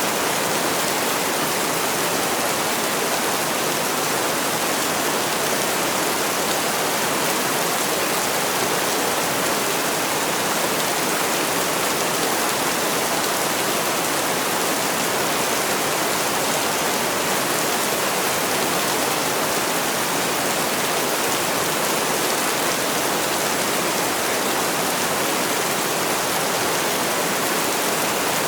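Heavy rain falling steadily, an even unbroken hiss of many drops with no thunder or distinct drips standing out.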